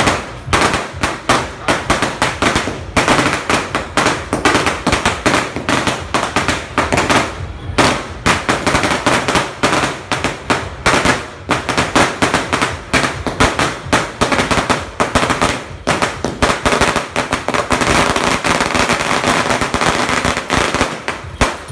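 A long string of firecrackers going off on the ground: a loud, rapid, uneven run of sharp cracks that stops shortly before the end.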